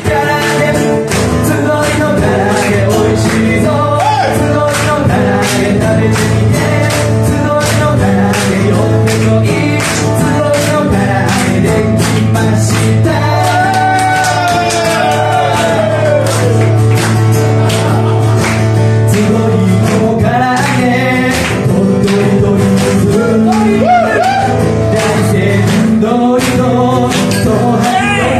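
Live band performance of a pop song: a sung lead vocal over strummed acoustic guitar, bass and a steady beat, played through a PA.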